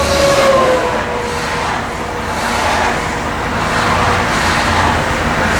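Highway traffic going by, with a steady rushing and a whine that slowly drops in pitch.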